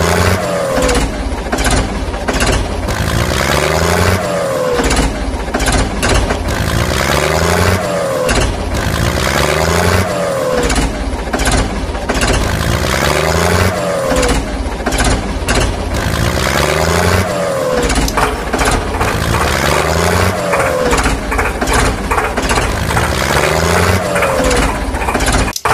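Looped vehicle-engine sound effect, the same short revving pattern repeating about every two seconds.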